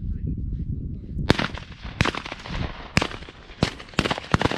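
Volley of shotgun shots from several hunters, about eight in three seconds, some sharp and close, others fainter. The shooting starts a little over a second in, after a low rumble.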